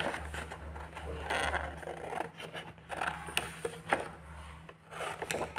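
A sheet of drawing paper rustling and scraping in irregular strokes as it is handled and slid across a tabletop, with a few sharp clicks. A steady low electrical hum runs underneath.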